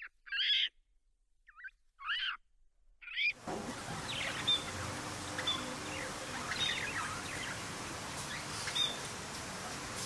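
Four short high calls that rise and fall in pitch during the first three seconds. Then budgerigars chatter with soft chirps and warbles over a steady hiss.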